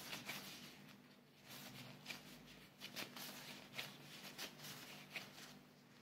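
Faint, soft rustling and crinkling of hands in disposable plastic gloves pressing and shaping a sushi rice ball. The rustles come as a scatter of short sounds over a low steady hum.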